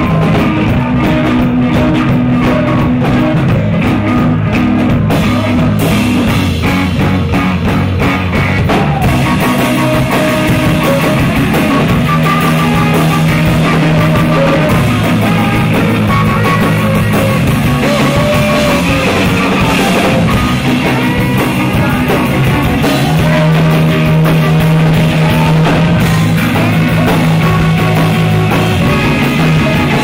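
Live band playing rock music: tenor saxophone, drum kit with cymbals, and electric guitar.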